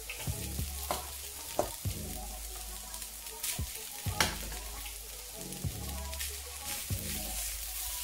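Mixed vegetables and cooked rice sizzling in sunflower oil in a frying pan as the rice is tipped in and turned, with a metal spatula scraping and knocking against the pan about eight times.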